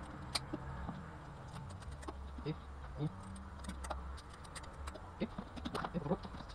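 A knife scraping and cutting at a rohu on a wooden cutting board, heard as scattered short scrapes and clicks over a steady low hum.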